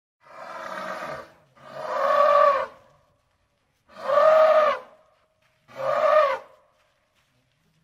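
African bush elephant trumpeting: four separate calls of about a second each, each rising and then falling in pitch, the first one softer than the rest.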